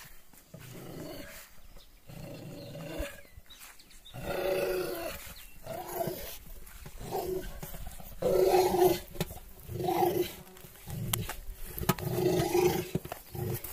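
American bulldog growling in repeated bursts while gnawing and tugging at a rubber tyre, the loudest growls coming about two thirds of the way through.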